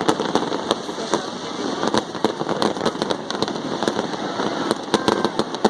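Fireworks display: a dense, irregular crackle of many sharp pops and bangs, several each second.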